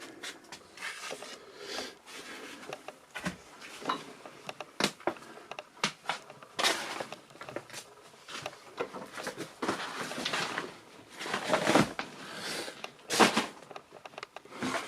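Household clutter being handled and moved about: irregular knocks, scrapes and rustles, with several louder scraping or rustling bursts in the second half.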